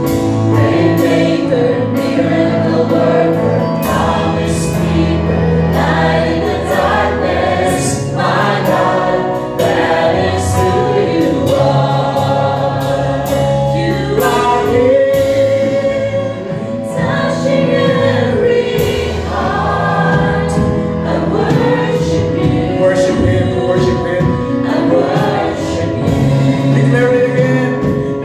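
Choir singing a gospel worship song over instrumental accompaniment with a steady bass and beat.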